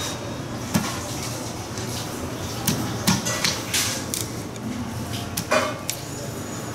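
Kitchen knife filleting a raw fish on a wooden cutting board: a few sharp knocks and short scrapes as the blade cuts through and meets the board, over a steady background noise.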